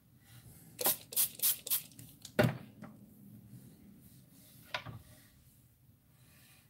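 A hand-pumped water spray bottle spritzing the wet watercolour paper, five quick hissing spritzes in a row about a second in. A sharp knock follows a moment later, and a softer one about two seconds after that.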